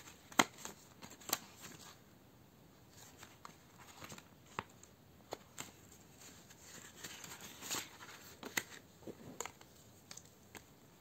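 Handling a ring-binder budget planner: paper cards and a plastic pocket rustling, with scattered light clicks and taps, the sharpest about half a second in.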